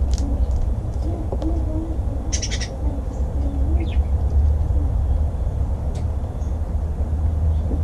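Outdoor ambience with a steady low rumble and birds calling: wavering low calls recur, with a brief chirp about four seconds in. A short burst of rapid clicks comes about two and a half seconds in.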